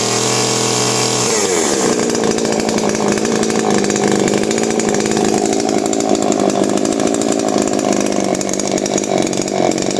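Husqvarna 333 two-stroke chainsaw engine running at high revs, then dropping to a steady idle as the throttle is released about a second in.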